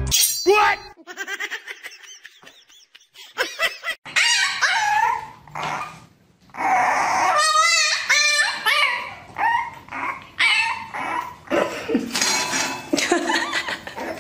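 A puppy barking and yelping in repeated high yaps, some of them longer wavering cries, through the second half.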